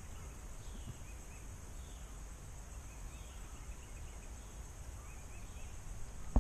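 Outdoor pond-side ambience: a steady high insect drone with faint scattered bird chirps over a low rumble. A single sharp click comes right at the end.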